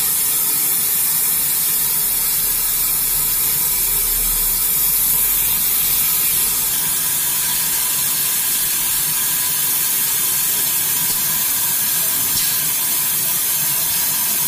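Gas-oxygen burner on a glass bottle mouth threading machine hissing steadily as its flame heats a glass tube.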